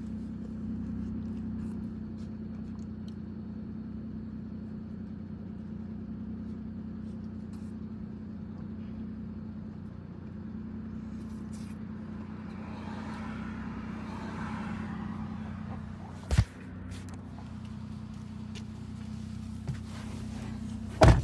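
Car engine idling, a steady low hum heard from the car, with a short thump about sixteen seconds in and a louder thump near the end.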